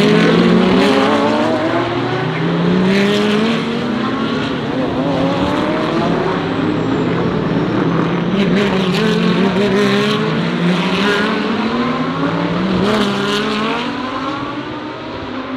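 GT3 race cars accelerating hard through the gears. The engine notes rise in pitch again and again, dropping back at each upshift, and get fainter near the end.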